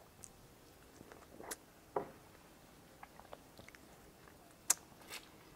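Faint mouth sounds of sucking and biting on lemon wedges after a tequila shot, with a few scattered sharp clicks and soft knocks; the sharpest click comes a little before the end.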